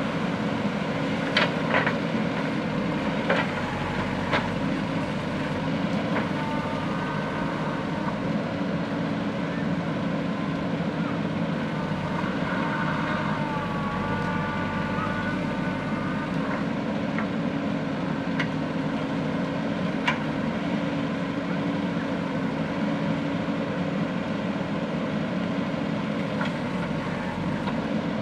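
JCB backhoe loader's diesel engine running steadily under work, with a few sharp knocks and clanks and now and then a short whine.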